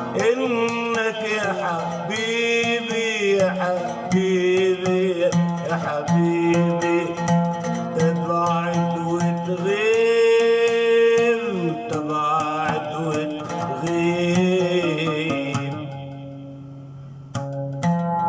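Arabic-style song music with no words: a melody of held, bending notes over plucked-string accompaniment. It fades down about sixteen seconds in, and plucked-string notes start again about a second later.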